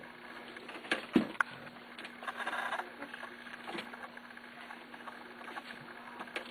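Young corgi puppies shuffling and scrabbling about on their bedding, with a few sharp knocks about a second in, over a steady low hum.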